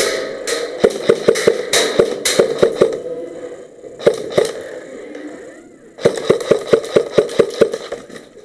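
Airsoft guns firing rapid shots indoors, about seven a second. A run of shots comes in the first three seconds, a couple more about four seconds in, and an even burst from about six seconds until just before the end.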